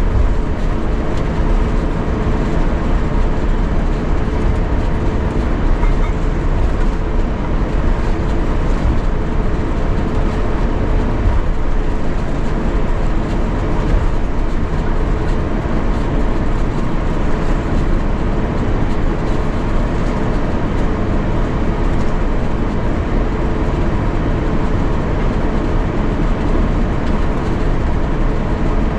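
Steady cabin noise of an Airbus A350-900 on the ground before takeoff, its Rolls-Royce Trent XWB engines at idle, with a constant hum throughout.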